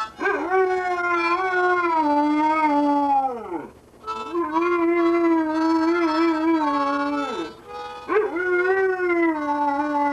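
A dog howling along to a harmonica: three long, wavering howls, the first two each sliding down in pitch and dying away at the end, the third starting about eight seconds in. Held harmonica notes sound beneath them.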